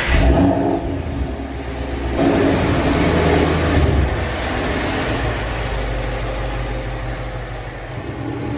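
A 2007 Ford Mustang GT's 4.6-litre V8 running at low speed as the car backs out of a garage. The engine note swells for a couple of seconds about two seconds in, then eases as the car rolls away.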